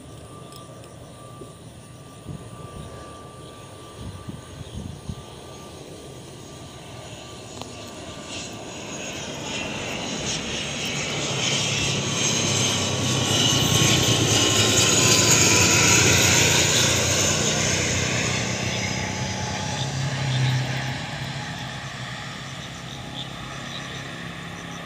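IndiGo ATR 72 twin-turboprop airliner flying past low on final approach to land. The drone of its engines and propellers swells to a peak about halfway through, then drops in pitch and fades as it passes.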